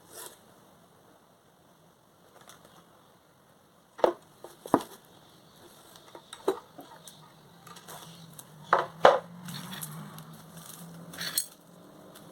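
Handling sounds of a package being unboxed: scattered taps and knocks, with a few sharp clicks standing out and light rustling between them.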